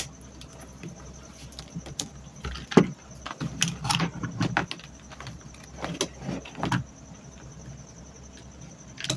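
Handling noise as fan-motor wiring is connected: irregular clicks, taps and short rustles of wires and small metal parts, the sharpest about three seconds in, with clusters a little later and again past the middle.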